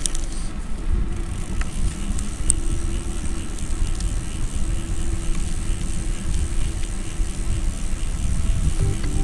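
Wind buffeting the action camera's microphone, an uneven low rumble, with a few small handling clicks as the camera is turned.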